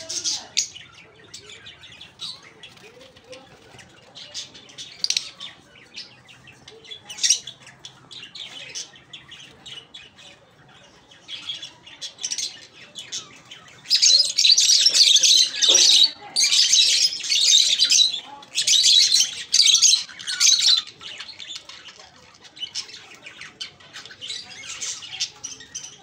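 Lutino Fischer's lovebirds calling in short, high-pitched chirps and squawks. About halfway through they break into a loud, dense stretch of chatter lasting several seconds, then drop back to scattered chirps.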